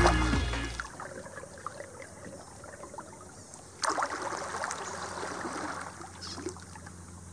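Background music fading out in the first second, then a kayak paddle working river water: a splash and wash of the blade about four seconds in, with quieter trickling and dripping water between strokes.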